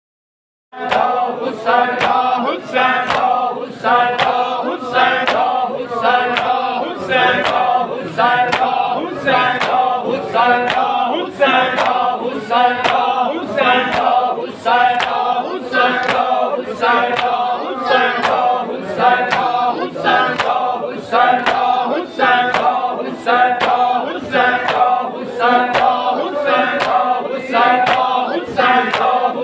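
A large group of men chanting a Punjabi noha (lament) together, over a steady beat of sharp, open-handed chest-beating (matam) struck in time. It starts abruptly less than a second in.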